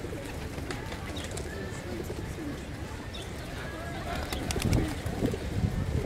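A flock of feral pigeons crowding close, cooing, with wings flapping. A clatter of wingbeats rises about four to five seconds in.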